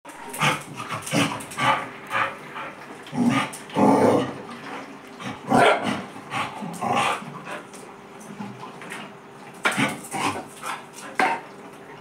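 Dog barking in short barks, a quick string of them over the first seven seconds, then a pause and three more barks near the end.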